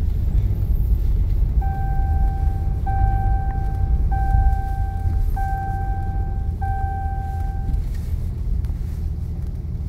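Steady low rumble of a heavy-duty diesel pickup driving slowly, heard from inside the cab. Over it, the truck's electronic warning chime sounds five times in a row, each tone about a second long at one pitch, starting a little under two seconds in and stopping about two seconds before the end.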